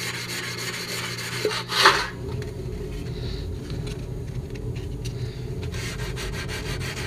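Hand sanding the dented rim of a stainless steel hubcap with 320-grit sandpaper on a small wooden block: a run of quick scratchy strokes, with one sharper scrape about two seconds in. The sanding stops in the middle and starts again near the end.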